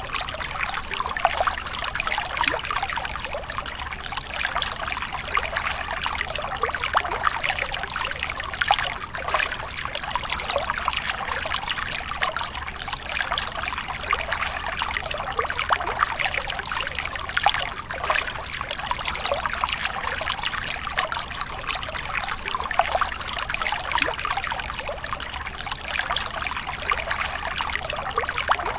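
A small stream of water trickling and splashing over rocks: a steady, continuous run of many tiny splashes.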